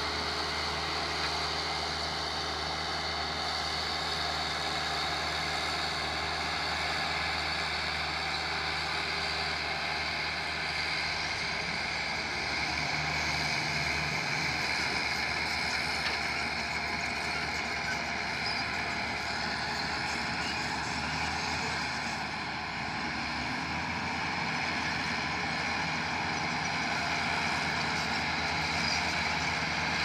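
Diesel engine of a single-drum road roller running steadily while the machine works over loose soil, its note shifting briefly about halfway through.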